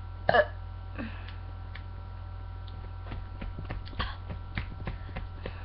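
Steady low electrical hum, with one short sharp sound about a third of a second in, a fainter one about a second in, and faint scattered clicks in the second half.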